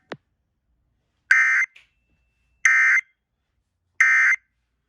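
Emergency Alert System end-of-message signal: three short, identical bursts of SAME digital data tones, evenly spaced about a second and a half apart. They mark the end of the broadcast flash flood warning.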